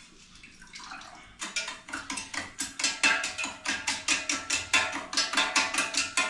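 Metal spoon clinking quickly against the inside of a stainless steel tumbler as a juice mixture is stirred briskly, about five clinks a second. It starts faint and grows louder about a second and a half in.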